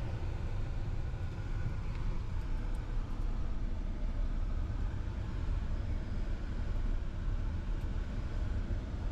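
Steady low engine and road rumble of a car driving, heard from inside the cabin.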